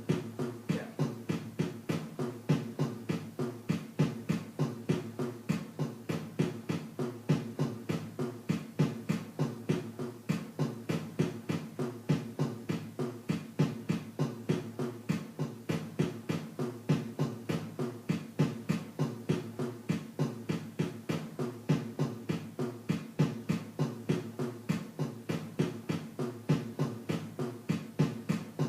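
Dance music with a fast, steady beat.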